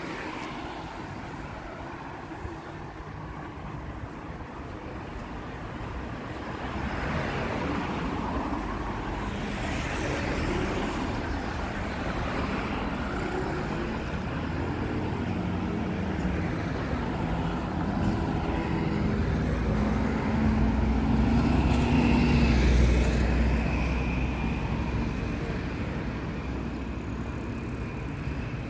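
Road traffic at a city crossroads: cars passing, with one vehicle's engine rumble growing loudest about three quarters of the way through.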